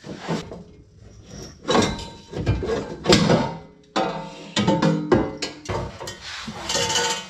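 Metal exhaust header being wrestled out of a car's engine bay: irregular clunks and scraping clatter, with the tubes ringing when knocked.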